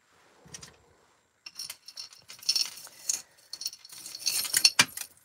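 Metal chain necklaces and costume jewelry pieces jingling and clinking as a hand rummages through a pile of jewelry beside a glass jar. A brief soft rustle comes first, then the clinking runs busily from about a second and a half in.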